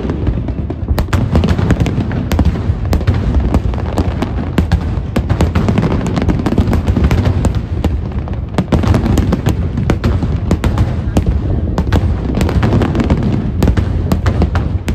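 Fireworks display going off without pause: many sharp bangs and crackles over a steady low rumble.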